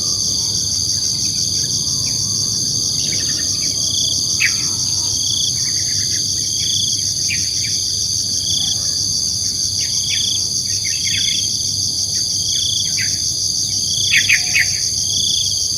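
Dusk chorus of crickets and other insects: a steady, rapidly pulsing high trill with a short note repeating about once a second. Scattered bird chirps come through it, with a quick cluster of chirps near the end.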